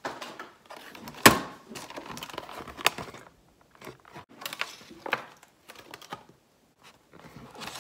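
Clear plastic clamshell food container being handled and opened: irregular crinkling and clicking of thin plastic, with one sharp louder click about a second in.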